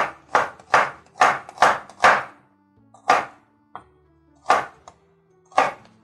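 Chef's knife slicing a red onion on a wooden cutting board: about nine sharp knock-like strokes of the blade hitting the board. The first six come quickly, about two and a half a second, then the strokes slow to roughly one a second. Quiet background music runs underneath.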